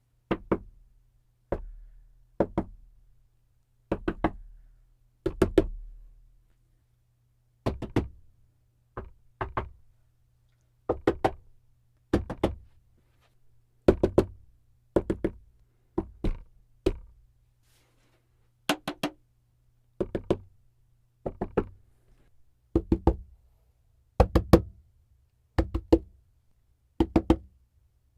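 Knocking on a desk in short groups of two or three quick raps, a group every second or so.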